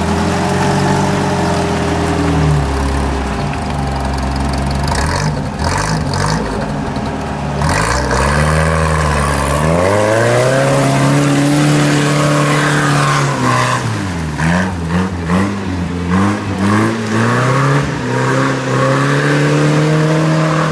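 UAZ-469 off-roader's engine labouring through deep mud. It runs low at first, revs up and holds high, then the throttle is blipped several times in quick succession before it revs and holds again.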